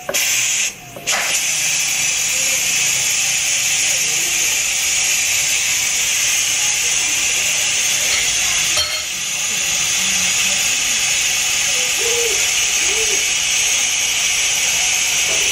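Electric pressure cooker's steam release valve opened by hand after cooking, venting pressure as a loud, steady hiss of escaping steam, with a short break about a second in.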